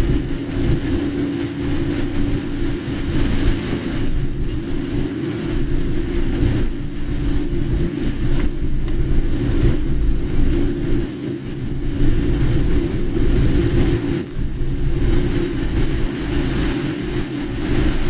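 A car driving: a steady engine and tyre drone with a hiss of wet-road and rain noise over it.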